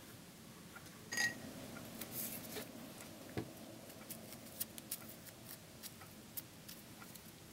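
Small pieces of paper being handled, twisted and crinkled by hand, giving soft rustles and scattered light clicks. About a second in there is a brief ringing clink.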